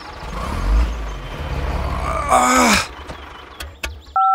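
Low, steady engine-like rumble from the toy mini tractor as it pulls a trailer loaded with sandbags. About two seconds in there is a short falling groan-like voice, then two sharp clicks, and right at the end phone-keypad beeps begin.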